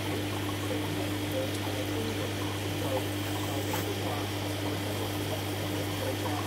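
Steady hum of aquarium air pumps and filtration, with water bubbling and trickling in the tanks.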